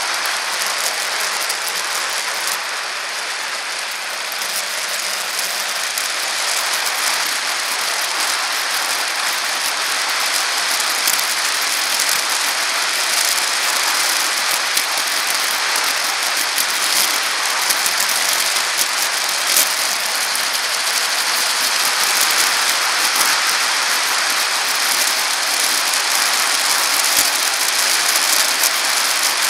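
Steady hiss of a bicycle rolling along a paved path, tyre and wind noise picked up by a bike-mounted camera, with faint rattling ticks from the bike throughout.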